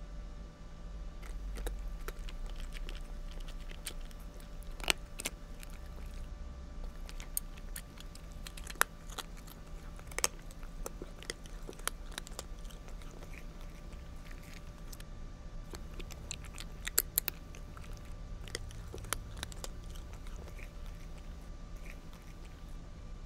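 Domestic cat chewing dry kibble: irregular sharp crunches as the pieces break between its teeth, a few much louder than the rest.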